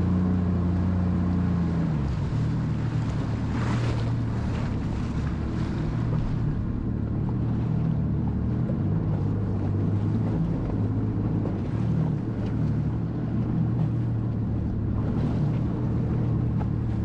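Jet ski engine running steadily under way, over a rush of water and wind; its pitch steps up a little about two seconds in, then holds.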